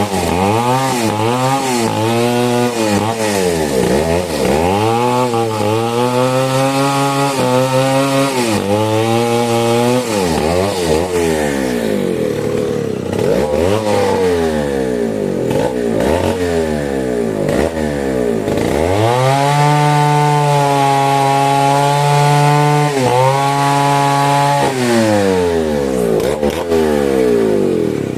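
Two-stroke chainsaw cutting mahogany wood. The engine is revved up and down again and again, then held at high speed for several seconds at a time near the end.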